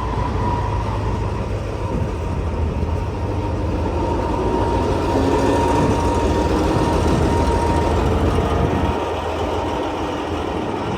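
Train running, a steady low rumble with a faint steady whine above it that fades near the end.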